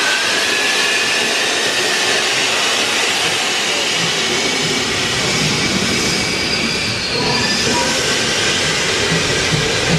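Class 50 steam locomotive pulling away slowly: a loud, steady hiss of steam venting low at the cylinders, with a thin high squeal over it and low rhythmic beats setting in about seven seconds in.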